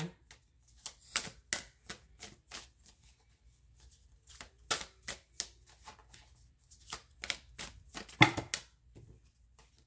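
Tarot cards being handled: an irregular run of short, sharp flicks and taps, with a brief denser cluster about eight seconds in.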